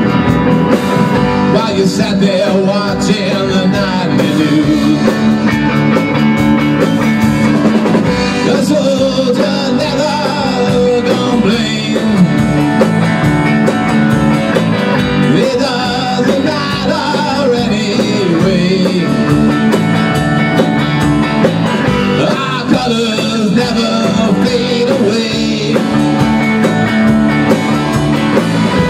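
Rock band playing live: drum kit with cymbals and electric guitars in a steady mid-tempo groove.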